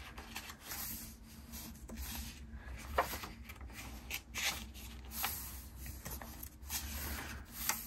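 Paper pages of a traveler's notebook insert being turned and pressed flat by hand: a series of short paper rustles and swishes.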